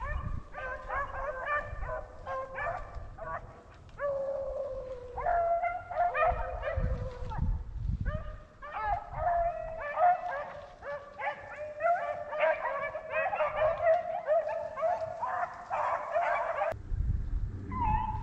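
A pack of rabbit-hunting hounds baying hard on a rabbit's trail, many voices overlapping almost without a break. The baying cuts off sharply near the end.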